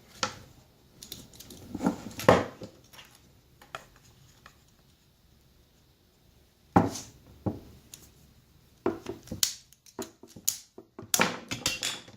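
Half-inch PVC pipe being cut to length: irregular crunches and clicks, the loudest two a few seconds apart, then a quicker run of clicks near the end.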